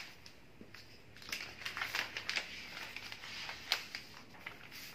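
Sheets of pink florist's wrapping paper rustling and crinkling as they are handled and folded by hand: irregular crackles, with one sharper crinkle toward the end.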